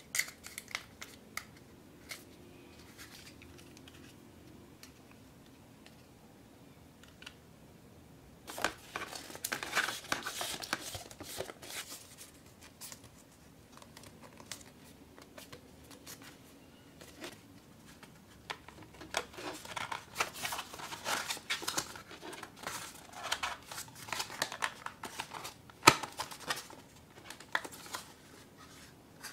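Stiff printed cardstock being folded along its creases and handled: crackling, creasing and rustling with sharp clicks, in two long bouts after a quiet pause, and one loud snap near the end.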